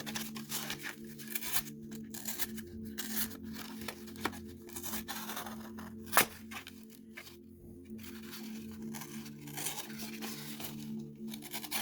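Folding knife blade slicing repeatedly through a thin material, a run of short rasping, tearing strokes testing its sharpness, with one sharp click about six seconds in.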